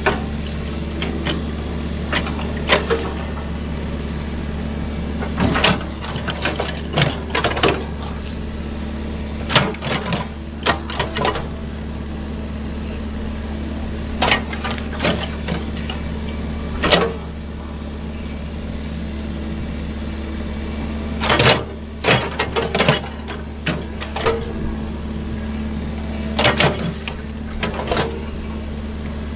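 Excavator's diesel engine running steadily, with sharp clanks and knocks at irregular intervals, several times a few seconds apart.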